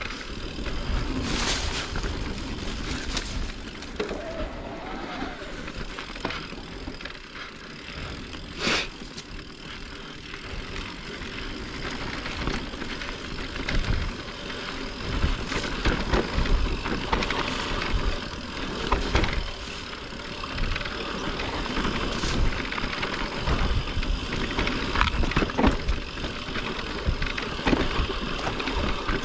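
Mountain bike being ridden on a dirt trail: steady tyre and riding noise, with the bike knocking and rattling irregularly over bumps.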